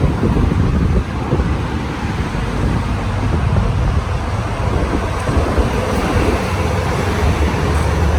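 Steady wind buffeting the microphone as the bike moves, over a constant wash of road traffic.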